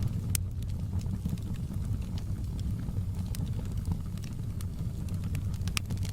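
Fireplace wood fire crackling, with irregular sharp pops over a steady low rumble of stormy rain.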